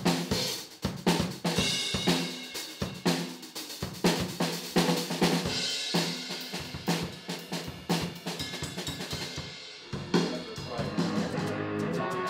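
Acoustic drum kit played in a steady beat, with kick drum, snare and cymbals. About ten seconds in the drumming stops and a pitched electric stringed instrument takes over.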